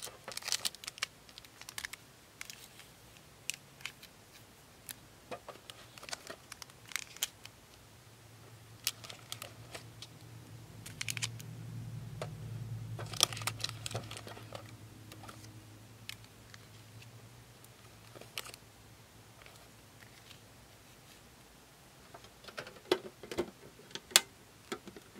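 Foil Pokémon booster packs being handled and set down one at a time: scattered sharp crinkles and taps. A low hum swells and fades in the middle.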